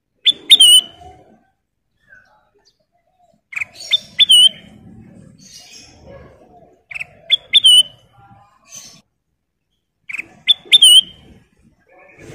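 Kutilang emas, a bulbul, calling in short phrases of a few sharp, whistled notes, each ending in a quick bending note. Four phrases come about three seconds apart.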